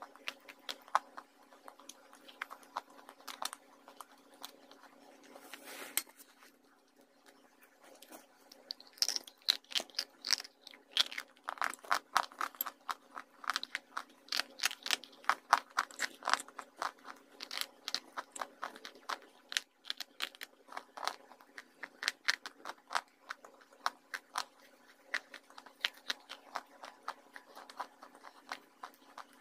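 Dry slate pencil sticks being bitten and chewed: sharp, crisp crunches. The crunches come only now and then at first, then in a dense run from about nine seconds in.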